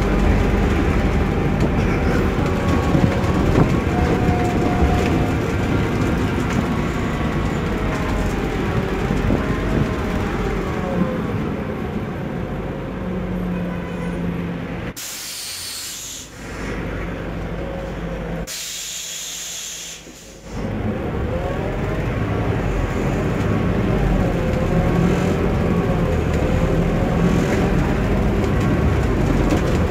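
Onboard sound of a Scania K280UB compressed-natural-gas city bus driving: steady engine and road noise, the engine note rising and falling. About halfway through come two loud air hisses from the bus's pneumatics, each a second or two long, while the engine noise drops low.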